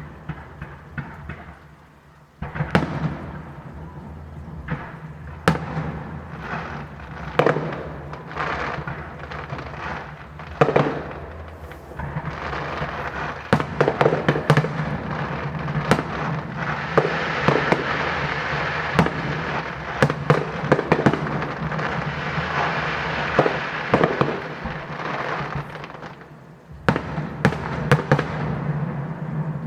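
Fireworks going off: a string of sharp bangs at first. From about twelve seconds in they thicken into a dense barrage with a continuous crackle. This eases off briefly near the end, and then a few more loud bangs follow.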